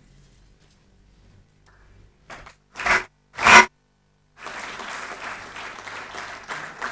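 Audience applause breaks out a little past halfway and goes on as a dense patter of many hands clapping. Before it the room is quiet apart from two loud short noises about three seconds in.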